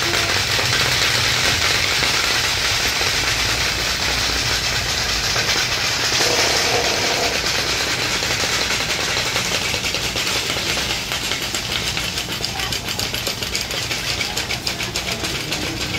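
Small engine running steadily under a constant hiss, with a fast, even ticking that grows plainer in the second half.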